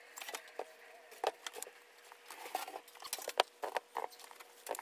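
A sheet of window glass handled and laid down flat on a wooden workbench: scattered light taps and clicks, the sharpest about three and a half seconds in, over a faint steady hum.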